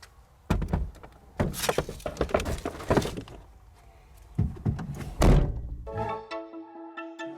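A series of heavy thuds and knocks, several close together, followed by music starting about six seconds in.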